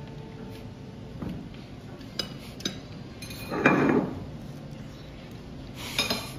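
Cutlery and dishes clinking at a table, a few short sharp clinks with a brighter cluster near the end, and a louder muffled noise about three and a half seconds in.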